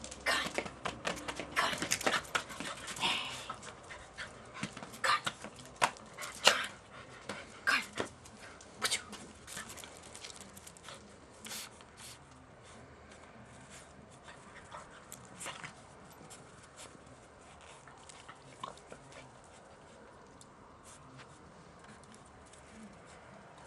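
A Staffordshire bull terrier puppy playing with a ball and panting. Sharp knocks and clicks come thick and fast for about the first ten seconds, then only now and then.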